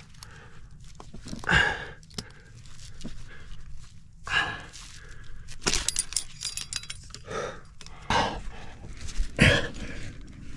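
A rock climber breathing hard in loud, separate exhalations and grunts, several seconds apart, as he strains on a strenuous lead. Metal climbing gear clinks briefly around the middle.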